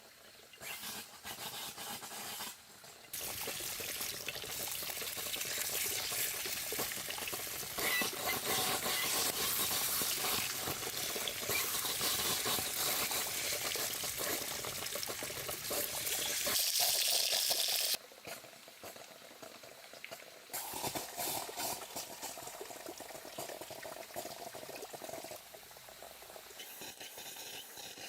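Water running or being poured, a dense steady splashing that starts suddenly about 3 seconds in and drops off abruptly about 18 seconds in, quieter after that.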